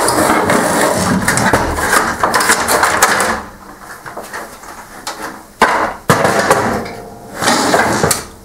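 Plastic top cover of an HP LaserJet 6P being slid and lifted off the printer's chassis: plastic scraping and rattling for the first three seconds or so, then two sharp clacks a little past halfway and more rubbing and knocking of plastic parts near the end.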